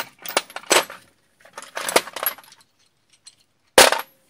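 Chrome steel sockets clinking and rattling against each other in a metal toolbox drawer as a hand rummages through them, in two bursts of clicks, then one sharp, louder metallic clack near the end.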